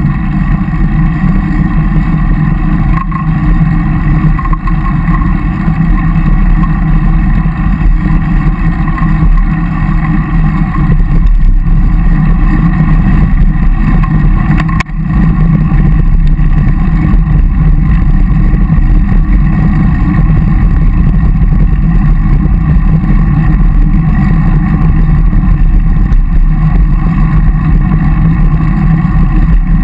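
Loud, steady wind rumble and road noise on a bike-mounted action camera's microphone while riding a road bike, with one brief dip about halfway through.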